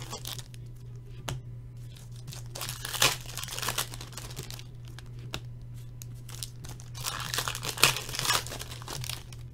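Trading-card pack wrappers being torn open and crinkled by hand, in two spells of rustling a few seconds apart, with a single click before the first.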